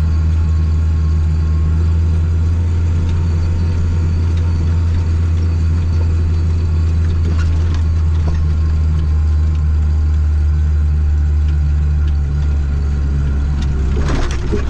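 Tractor diesel engine running steadily under way, a constant low drone heard from inside the cab.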